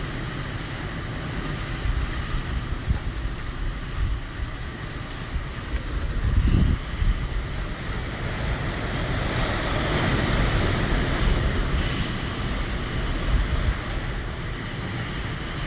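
Typhoon Hagibis's winds rushing past a high-rise building in a deep, steady roar that swells and eases in gusts. There is a short louder gust about six and a half seconds in and a bigger swell around ten seconds.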